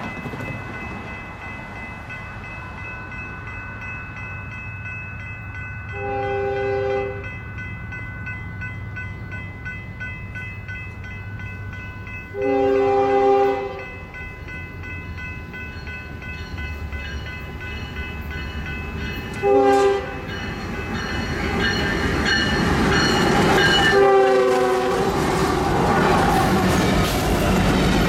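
Union Pacific diesel freight locomotive's air horn sounding the grade-crossing signal on approach: two long blasts, a short one, then a long one, a multi-note chord each time. Under the horn the train's rumble grows steadily, and it is loudest near the end as the locomotive passes close by.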